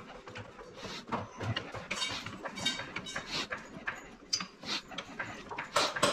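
A jack being pumped to lift a vehicle, with short clicks and knocks about twice a second.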